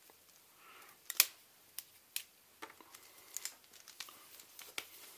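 Hands unwrapping and handling a mains power cable and its packaging: scattered sharp clicks and light rustling, the loudest click about a second in.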